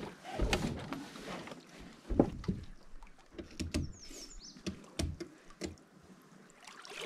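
Gear being handled in a loaded canoe at the water's edge: irregular knocks and thumps against the hull. The loudest knock comes about two seconds in.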